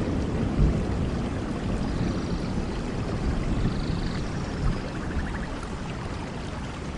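Rain falling steadily, with a low rumble underneath.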